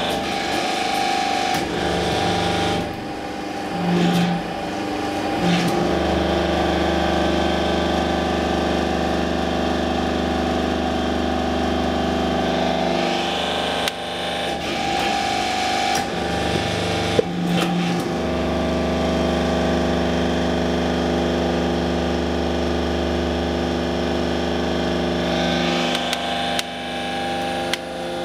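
Refractory brick press running: a steady machine hum, with a deeper, heavier tone coming in for several seconds at a time, twice, as it works under load. Scattered knocks and clicks come near the middle and near the end.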